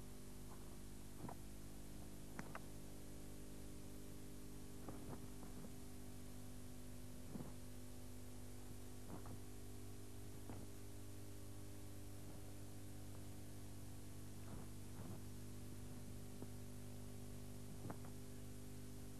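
Steady electrical mains hum and tape hiss, with about a dozen faint short sharp snaps at irregular intervals.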